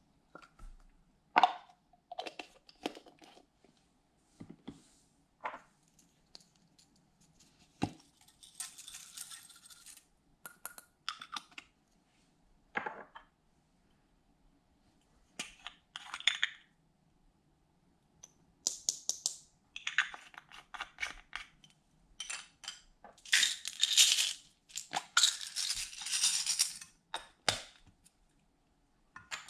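Small plastic containers clicking open and shut, and glitter and sequins shaken and poured into a glass baking dish in rattling, crackly bursts, the busiest and loudest near the end.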